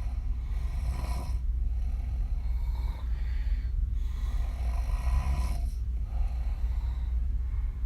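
A woman snoring open-mouthed while lying on her back, each breath a rough snore, with short gaps between breaths about every two seconds. A steady low hum runs underneath.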